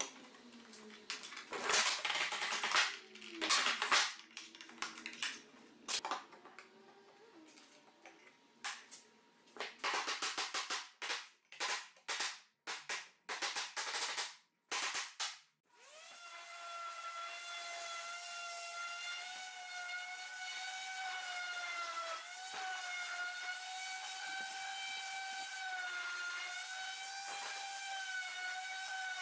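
Wooden mallet tapping a slatted wooden chair-back frame together: scattered knocks early on, then a fast run of sharp knocks. From about halfway a random orbital sander runs steadily with a high whine.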